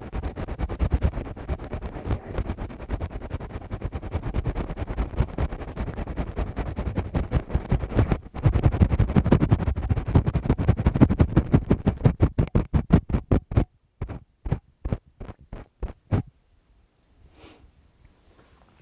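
ASMR ear-cleaning sounds: lace-gloved fingers rubbing and scratching rapidly against the microphone, with a brief break about eight seconds in. Near the end the strokes slow to a few separate rubs a second and then stop.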